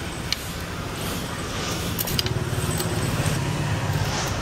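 Steady low rumble of street traffic, with a few light metallic clicks from bicycle spokes being handled and laced into a hub.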